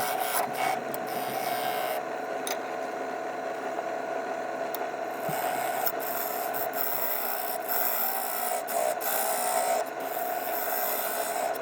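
Wood lathe running with a steady hum while a turning tool cuts a spinning log of green wood: a continuous scraping hiss with scattered sharp ticks.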